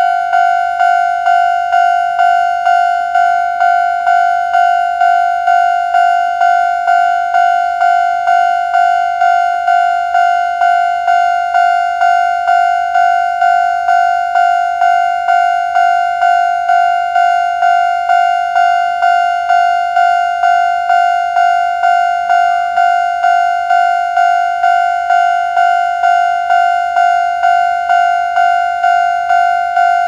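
Japanese electronic level-crossing alarm ringing steadily, one ding repeating about one and a half times a second: the crossing is warning that a train is approaching.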